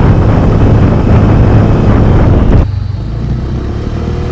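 Honda Click 125i single-cylinder scooter engine running steadily under heavy wind rush on a camera-mounted microphone while riding. About two and a half seconds in, the wind rush cuts off suddenly and mostly the engine hum remains.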